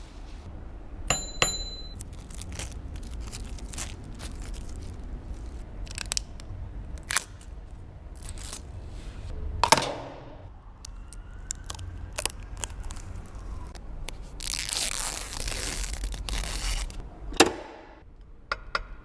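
Packaging handled during an unboxing: scattered clicks, knocks and crinkles, with a longer tearing rustle about fifteen seconds in. A brief high ping sounds about a second in.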